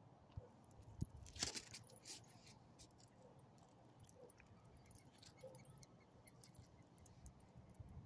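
Near silence: faint outdoor ambience with scattered small clicks and one short hiss about a second and a half in.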